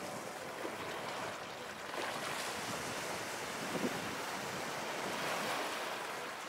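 Steady rushing of wind and sea waves, with wind buffeting the microphone and a small knock about two-thirds of the way through.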